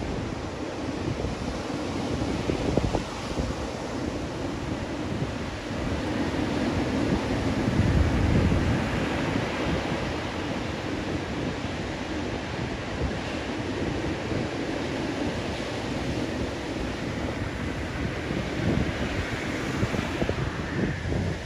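Ocean surf breaking and washing up a beach, mixed with wind buffeting the microphone in low rumbles; the rush swells loudest about eight seconds in.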